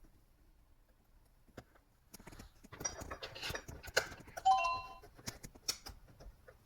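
A home printer starting up: a rapid run of mechanical clicks and rattles from its paper-feed and print-head mechanism, with a short electronic beep about halfway through.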